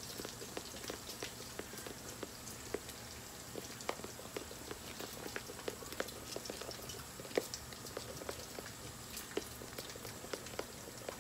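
Food frying in a pan: scattered, irregular crackles and pops over a faint steady sizzle.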